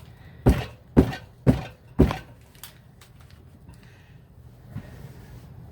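Four sharp knocks about half a second apart, something hard being tapped on a hard surface during the soap-making, followed by a few faint clicks.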